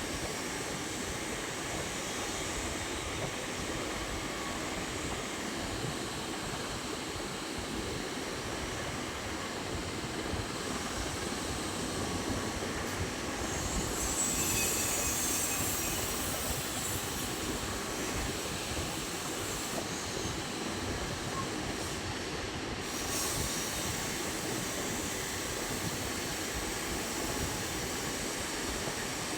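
CNC lathe running steadily while turning and threading a 1-inch NPT pipe thread, a continuous machine-shop noise. A higher hiss rises for a couple of seconds about halfway through.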